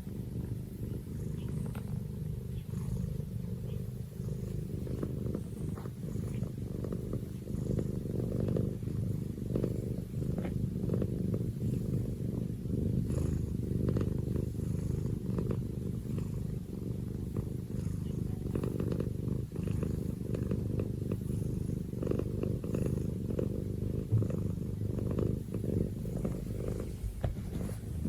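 Domestic cat purring continuously: a low, steady, pulsing purr.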